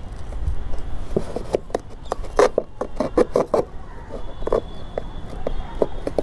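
Knife cutting and piercing the top of an empty paperboard juice carton: a run of irregular short crunches and clicks, densest from about one to five seconds in.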